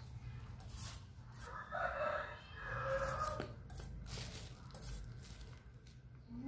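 A rooster crowing once in the background, starting about a second and a half in and lasting about two seconds, with short scrapes of a blade peeling a starchy root before and after it.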